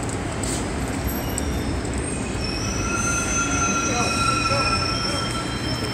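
A high metallic squeal of several steady tones, starting about two seconds in and lasting about three seconds, over the low rumble of city traffic.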